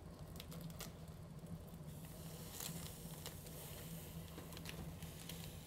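Faint soft taps and clicks of a knife slicing a raw sea bream fillet into sashimi pieces on a wooden cutting board, over a steady low hum.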